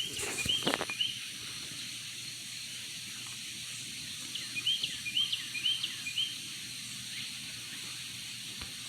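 Small birds chirping: short, repeated high calls in a cluster near the start and again around five to six seconds in, over a steady outdoor background hiss.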